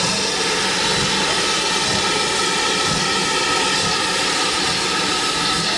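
Steam tank locomotive giving off a loud, steady hiss of escaping steam as it moves slowly off, with no separate exhaust beats.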